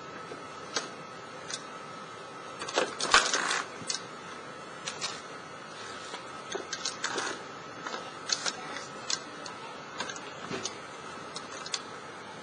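Irregular knocks and clatters of a Boston Dynamics BigDog-type four-legged robot's feet stepping on and shifting loose concrete cinder blocks, the loudest clatter about three seconds in, over a faint steady high hum.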